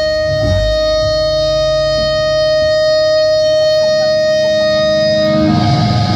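Distorted electric guitar through a live amplifier, holding one steady ringing note; about five seconds in it shifts to a slightly higher held tone over a rougher, louder low rumble.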